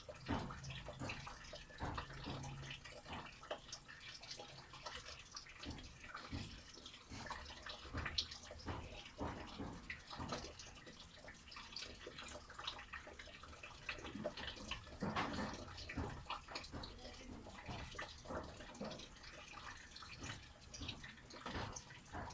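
Rain, with rainwater dripping and splashing in irregular drops.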